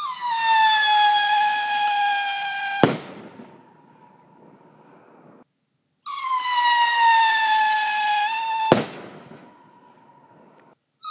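Howling Wolf SP906 whistling stick rockets: two launches, each a loud whistle sliding slowly down in pitch for nearly three seconds and ending in a sharp bang as the rocket bursts. A third whistle starts at the very end.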